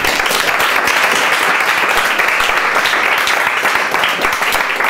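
Small audience applauding: many hands clapping steadily at the close of a talk.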